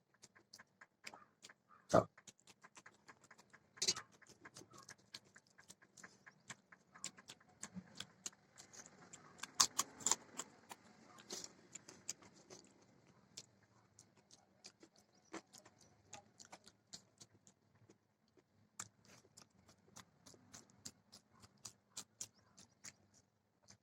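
Close-miked eating sounds: irregular chewing, wet mouth clicks and small crunches, with a few louder sharp clicks or taps scattered through.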